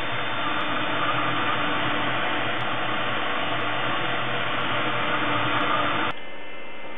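Desktop CNC milling machine's spindle running while its fine tapered cutter mills a plastic lithophane, making a steady noisy whir. It cuts off suddenly about six seconds in, leaving only a low hum.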